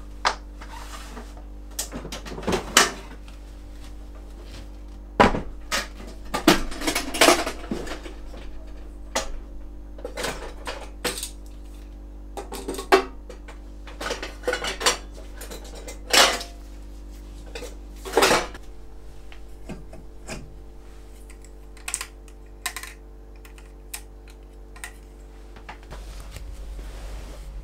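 Camp gear being packed into a storage box: irregular clinks, knocks and clatter of hard, metal-sounding items set down and knocking together. They come thick for the first two-thirds and thin out near the end, over a faint steady hum.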